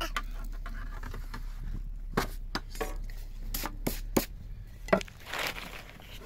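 Kitchen utensils and dishes being handled: a run of about seven sharp clinks and knocks, then a short scrape a little after five seconds in.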